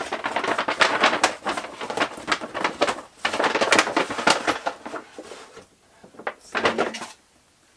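Stiff paper shopping bag crinkling and rustling as it is handled and opened. The rustling is busy for about five seconds, then dies down, with one short last rustle near the end.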